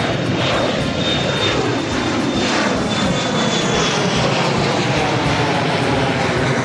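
Jet airliner's engines running loud and steady as it passes close by, with a thin high whine that fades out about four seconds in and a pitch that slides downward.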